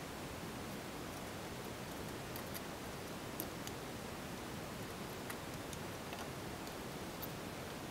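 Steady low hiss with a few faint, scattered light clicks, like small objects being handled at a workbench.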